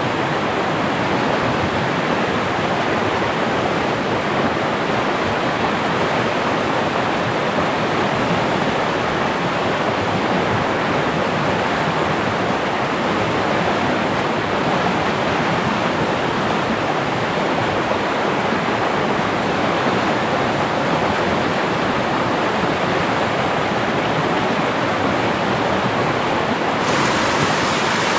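Steady rush of flowing river water, an even noise with no rhythm or distinct events. The sound brightens slightly near the end.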